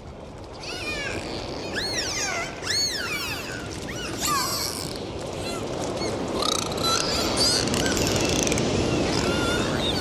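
Dolphins whistling underwater: repeated arching and falling whistles, busier and overlapping in the second half, over a steady rush of water noise.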